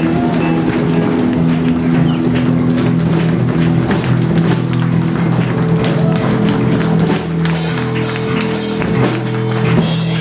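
Live rock band playing, with guitar and drums.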